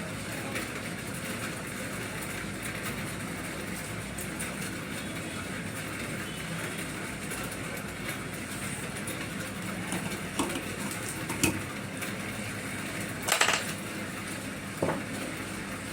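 Hot air rework gun blowing a steady hiss of air while it heats the solder under a new charging socket, letting the socket settle onto the board. A few light clicks and taps come in the second half, the loudest about 13 seconds in.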